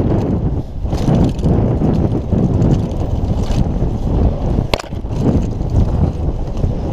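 Kona Operator downhill mountain bike racing fast down a dirt trail, heard through a GoPro's microphone: a continuous rough rumble and rattle of tyres and bike over the ground with wind buffeting the microphone, surging unevenly. A single sharp knock sounds about three-quarters of the way through.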